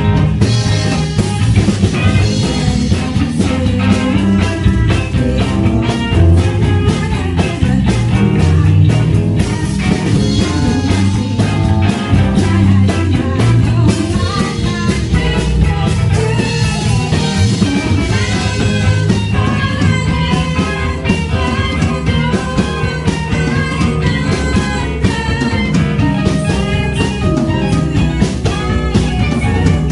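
Live rock band playing: a woman singing over electric guitar, bass guitar and drum kit.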